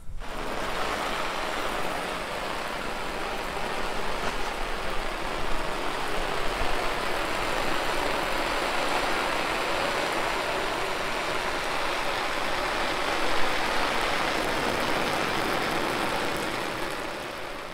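Garden hose spray nozzle spraying water onto a tent's fabric: a steady hiss of water spattering on the cloth, easing off near the end.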